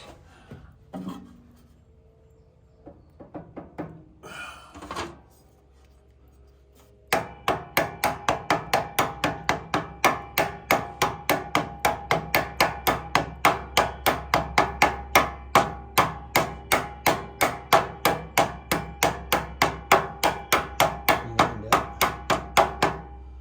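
Scattered small knocks and handling, then, about seven seconds in, a hammer starts tapping steadily on metal, about three ringing strikes a second, and stops just before the end.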